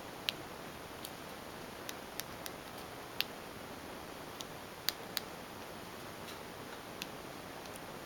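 Button clicks from a handheld infrared remote as its directional pad is pressed to step the cursor: about ten short, sharp clicks at uneven intervals over a steady hiss.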